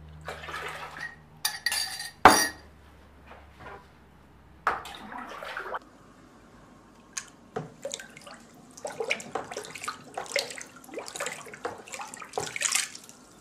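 Water sloshing and swirling in a plastic basin as it is stirred, in uneven splashy bursts, with one sharp knock about two seconds in.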